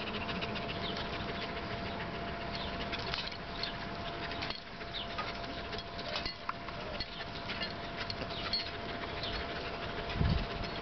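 Barbary macaque and German Shepherd puppy scuffling at play on concrete: light scattered clicks and scuffs over a steady outdoor hiss with a faint steady tone, and a low rumble near the end.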